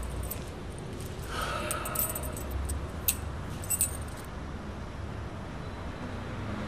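A bunch of keys jangling and clinking for a few seconds, with a couple of sharper clicks near the end of the jingling.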